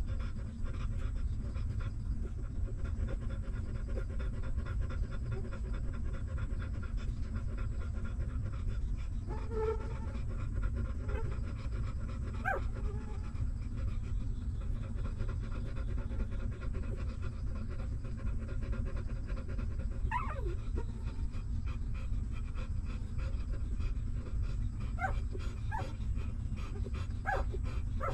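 Mother dog panting steadily close up, with newborn puppies giving a few short, thin squeaks, more of them near the end.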